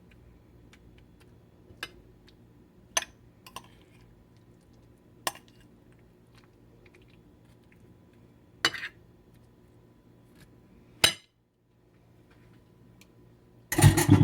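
Utensils and dishes clinking while coleslaw is served onto a plate: a handful of separate sharp clinks spaced a second or more apart, then a louder cluster of clattering clinks near the end.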